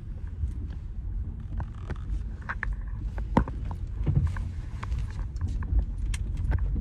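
Steady low rumble inside a 2003 Buick Regal's cabin, with many light clicks and rattles scattered through it.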